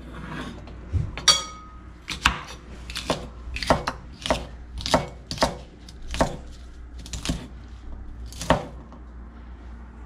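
Chef's knife chopping tough asparagus stalks on a wooden cutting board, each cut a sharp knock on the board, about two a second, stopping shortly before the end. A short ringing metallic clink a little after one second in.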